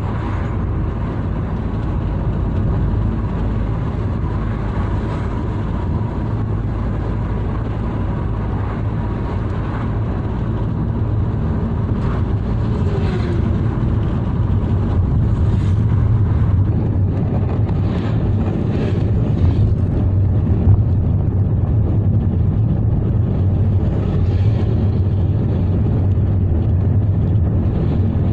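A car driving along a road: steady engine and tyre rumble.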